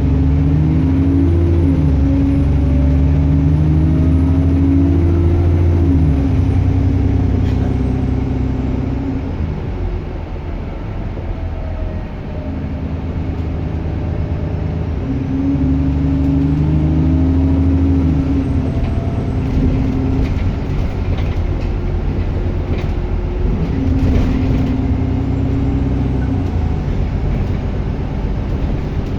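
Bus engine pulling hard, then easing off and picking up again twice, with a high turbocharger whine rising and falling over it. There are a few light rattles in the second half.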